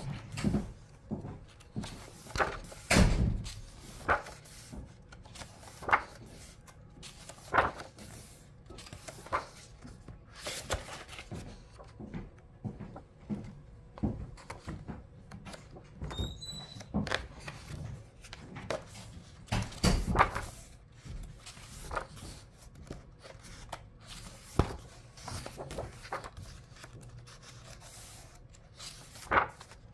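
Pages of a hardcover picture book being turned and handled on a wooden table: paper rustling and flapping, with scattered taps and a couple of heavier thumps, about 3 and 20 seconds in.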